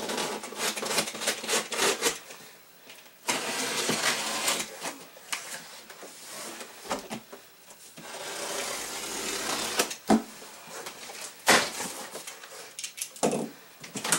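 Packing tape being slit and torn off the top of a cardboard box, in long rasping stretches, then a few sharp cardboard knocks near the end as the flaps are opened.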